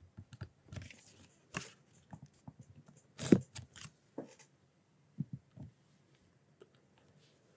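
Faint scattered taps and short scratches of a stylus writing on a tablet screen, the loudest tap about a third of the way in.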